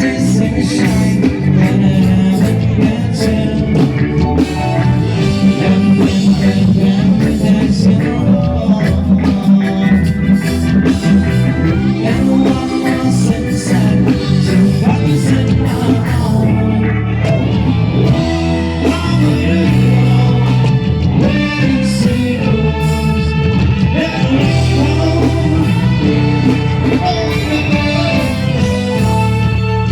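Live band playing amplified music, with electric guitar, bass and drums and a singer.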